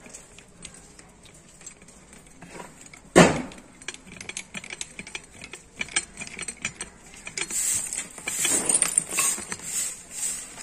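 Metal-on-metal clinking and scraping as a steel rod is worked inside a cast-iron hand pump head, with one sharp loud clank about three seconds in and busier rattling over the last few seconds.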